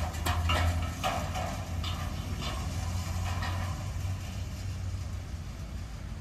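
Steam locomotive working slowly out of sight, its exhaust beats coming about every half second over a low rumble, growing fainter until they die away.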